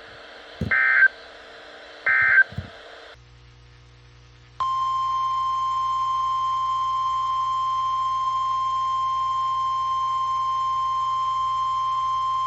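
Two short, shrill SAME digital data bursts from an Emergency Alert System broadcast on NOAA Weather Radio, about a second and a half apart, closing the previous warning. About two seconds after the second burst, the steady 1050 Hz weather radio warning alarm tone starts and holds at one pitch, signalling that a new warning follows.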